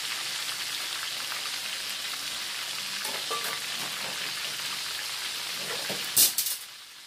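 Breaded chicken cordon bleu deep-frying in hot oil: a steady sizzling hiss with fine crackles. About six seconds in there is a short, much louder burst of noise, after which the sound drops briefly.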